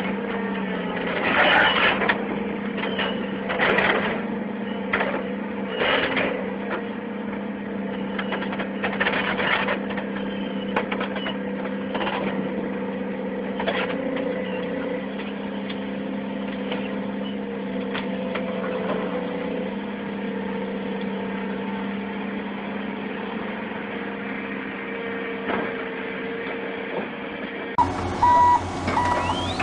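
Caterpillar tracked excavator's diesel engine running at a steady pitch, with a few short clanks in the first half. Near the end, rapid electronic beeping starts over a low hum.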